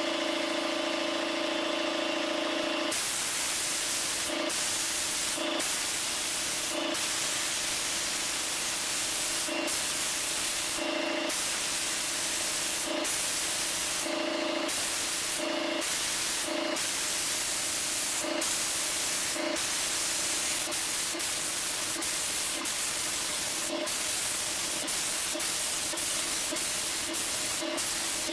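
HVLP gravity-feed spray gun hissing with compressed air as it sprays thinned enamel paint, with brief louder surges every second or two as the strokes change. A steady hum sits underneath.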